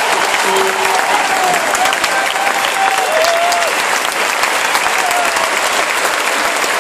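Large stadium crowd applauding at a tennis match: steady, dense clapping with a few voices calling out over it.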